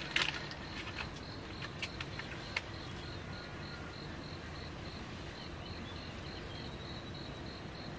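An insect chirping steadily outdoors: a short note at one high pitch, repeating about three times a second. A few light clicks and knocks come in the first few seconds, the loudest just after the start.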